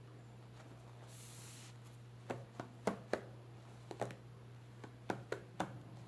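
Product packaging being handled: a brief hiss about a second in, then a string of sharp, irregular clicks and taps over a steady low hum.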